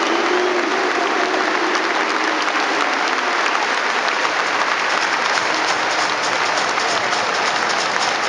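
Football stadium crowd applauding, a steady wash of many hands clapping, with sharper individual claps close by in the second half.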